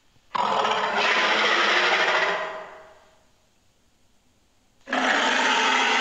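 Made-up monster roar sound effect, built from recorded creature sounds, sounded twice: a rough roar of about two seconds that starts suddenly, a pause of a couple of seconds, then a second roar starting near the end.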